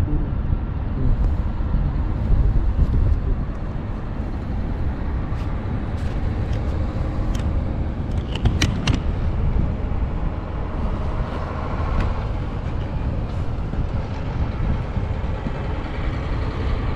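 Steady low outdoor rumble, with a few sharp clicks about halfway through.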